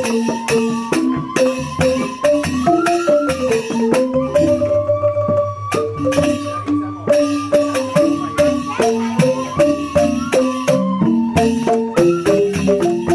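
Balinese bamboo gamelan: bamboo xylophones struck with mallets in fast, busy patterns, with a bamboo flute holding a sustained melody above them. A deep low tone sounds from about four to seven seconds in.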